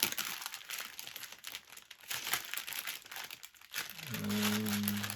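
Small plastic bags of diamond-painting drills crinkling and rustling as they are sorted through by hand. Near the end a low steady hum comes in.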